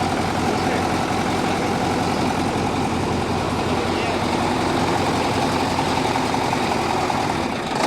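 YaMZ-6581 V8 turbodiesel truck engine running steadily on its first run after a full rebuild.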